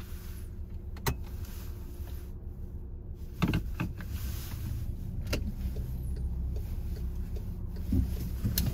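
Car idling while stopped at a light, heard from inside the cabin as a steady low rumble. A few sharp clicks and knocks come through it, about a second in, twice around three and a half seconds, once past five seconds and once near the end.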